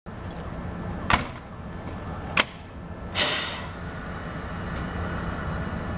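Yoro Railway 600 series electric train standing at the platform with a steady low hum. Two sharp clunks come about a second and a quarter apart, then a short hiss about three seconds in that fades within half a second.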